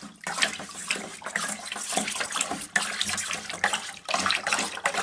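Water sloshing and splashing unevenly as a small object is swirled through it like a washing-machine agitator to stir up a whirlpool.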